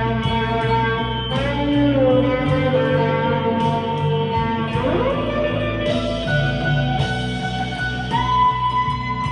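Harley Benton CST-24 electric guitar played through a Vox AV15 amp on its crunch channel with reverb, delay and chorus: sustained, bent lead notes, with a slide up in pitch about five seconds in.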